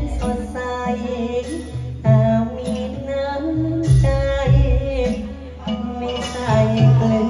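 Music for a Thai likay dance: a melodic tune over a heavy bass beat.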